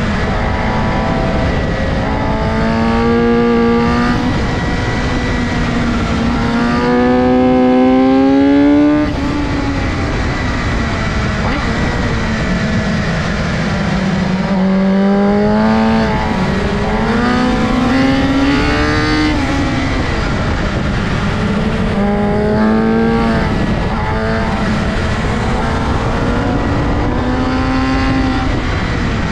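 BMW S1000RR inline-four sportbike engine under hard acceleration on track, its pitch climbing through the revs several times and falling back under braking and gear changes, with heavy wind noise. It is loudest about eight seconds in, then drops off sharply.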